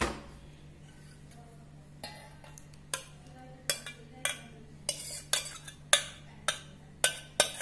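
Steel spoon clinking and scraping against a stainless steel saucepan and bowl as thick lentil-and-spinach dal is scraped out. One clink at the start, then from about two seconds in a run of clinks that come faster toward the end.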